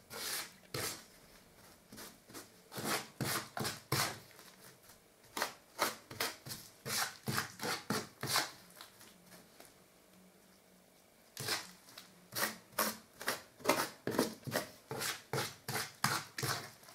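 Steel filling blade scraping and chopping undercoat plaster and water together on a filling board, mixing it by hand. The strokes come in a quick rhythm of about two to three a second, with a pause of about two seconds about two-thirds through.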